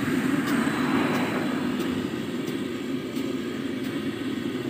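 Steady low roar from a street cart's oil deep fryer and the burner under it, with the hot oil hissing more strongly around a second in.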